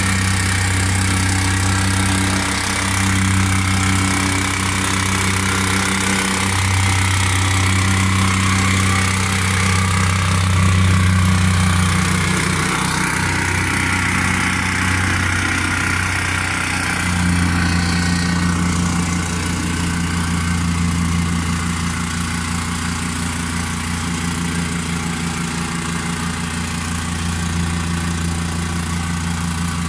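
Petrol vibratory plate compactor running steadily, its small engine and vibrating plate giving a constant low hum as it compacts the base for paving slabs.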